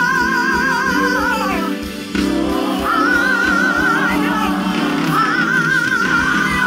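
Gospel singing with instrumental accompaniment: a voice holds three long notes, each with a wide, even vibrato, over a steady backing.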